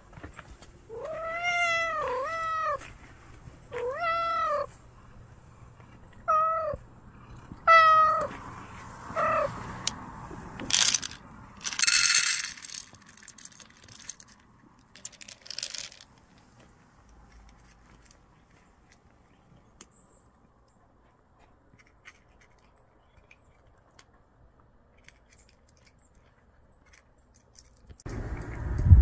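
A stray tortoiseshell-tabby cat meowing repeatedly, about seven rising-and-falling meows over the first ten seconds. Then a short rattle of dry cat food poured into its bowl, and it goes quiet while it eats.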